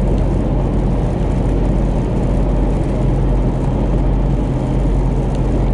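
Steady road and engine noise inside the cabin of a moving 1994 Buick Roadmaster, a low even hum under the tyre rush.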